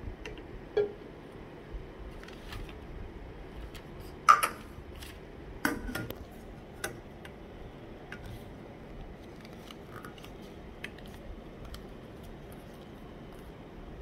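Lenox Butterfly Meadow tea kettle being handled, its lid set in place, giving scattered metallic clinks and knocks, the loudest about four seconds in; they grow fewer and fainter in the second half.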